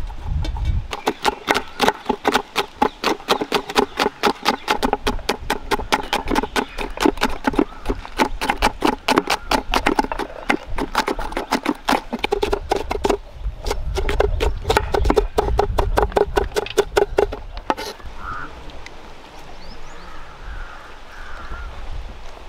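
Knife chopping green chillies on a wooden cutting board in a fast, even rhythm of about five to six strokes a second, with a brief pause midway; it stops a few seconds before the end, leaving quieter outdoor ambience with a few faint chirps.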